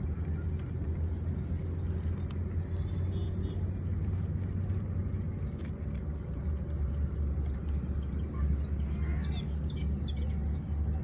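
A steady low hum, with birds chirping briefly about eight to nine seconds in.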